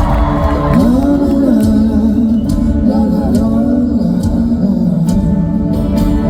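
Live band music: a singing voice over the band's accompaniment during a sound-check performance of a folk-pop song.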